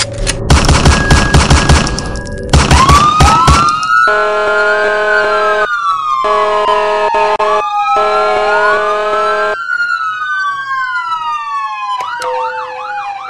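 A rapid burst of gunfire in two volleys of shots, then several emergency sirens wailing, rising and falling over one another, with a steady blaring horn-like tone sounding in three long blasts. Near the end a siren switches to a fast yelp.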